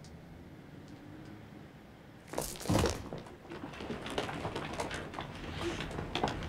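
Hushed, then a sudden loud burst about two and a half seconds in, followed by a growing clamour of distressed people's voices.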